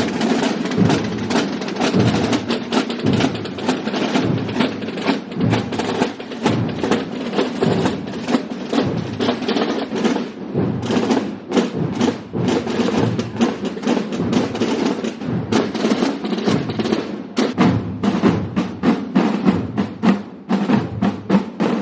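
Massed procession drums (tambores) played together, beating a dense, fast march rhythm of many overlapping strokes.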